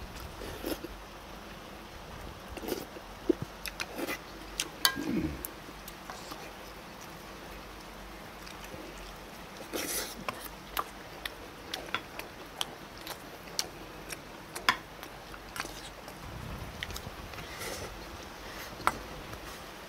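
Eating at a table: a person chewing and slurping food, with scattered sharp clicks of chopsticks and a spoon against steel bowls.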